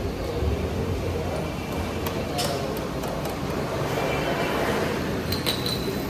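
A few light metallic clinks of tools and brake parts as new brake pads are fitted to a motorcycle, over a steady low background rumble.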